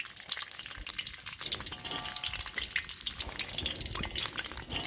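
Peeled almonds frying in hot desi ghee in a kadhai, a steady dense crackle and sizzle.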